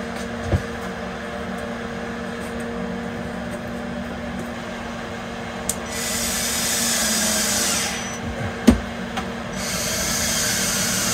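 Cordless drill-driver running in two spells of about two seconds each, driving screws into a plastic vent-fan trim shroud, with a couple of sharp knocks and a steady low hum underneath.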